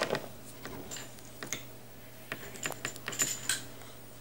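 Small plastic toy figures clicking and clattering against each other as they are rummaged through in a box: a sharp knock at the start, then scattered light clicks, busier in the second half.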